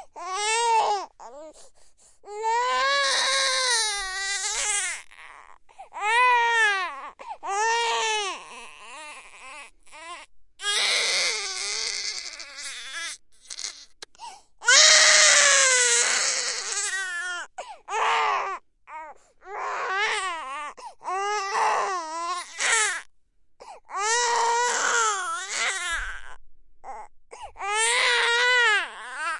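A three-month-old baby crying hard, in a run of wailing cries with short gasps for breath between them; the cries waver up and down in pitch, and the longest and loudest comes about halfway through.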